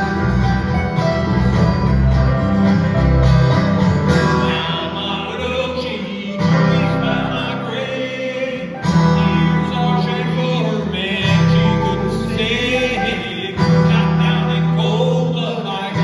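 Live acoustic band music: mandolin, two acoustic guitars and electric bass playing together, with a man singing lead from about four seconds in.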